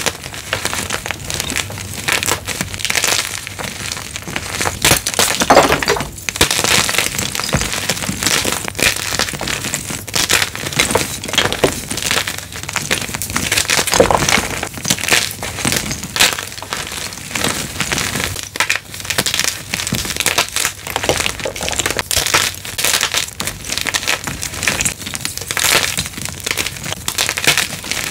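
Blocks of gym chalk being crushed, a continuous run of dry, crunchy cracks and crumbling with no pauses.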